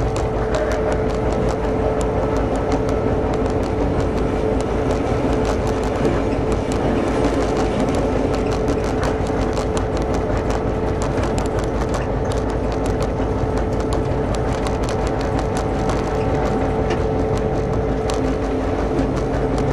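GM-engined DSB MY diesel locomotive heard from its cab: the two-stroke diesel running steadily with a constant whine, while the train rolls along the rails with light ticks and rattles.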